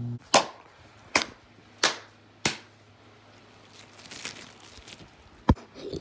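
Inflated rubber balloon being batted by hand. There are four sharp taps in quick succession, then a softer stretch, then one more hard tap near the end.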